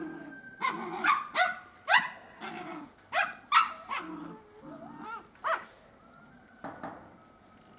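Puppies barking and yipping in play: a quick series of about eight short, high-pitched yaps over the first five seconds or so, then quieter.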